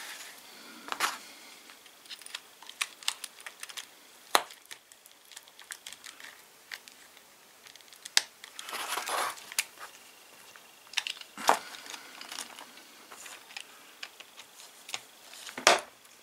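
Handling noise from a small cordless one-handed chainsaw being worked on as its chain is adjusted: scattered clicks and knocks of plastic and metal against a cardboard sheet, with a few sharper taps and a brief rustle about nine seconds in.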